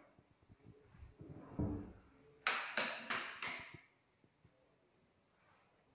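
Four quick, sharp clacks about a third of a second apart, each with a short decay.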